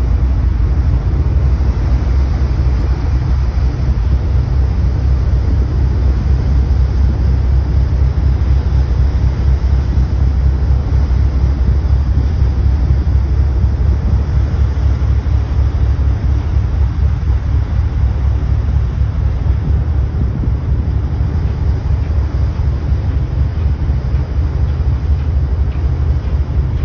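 Steady low engine rumble of a boat under way, with wind buffeting the microphone.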